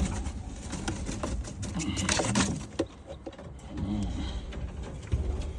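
Domestic pigeons cooing low in a loft, a couple of times, amid rustling, light clicks and handling noise.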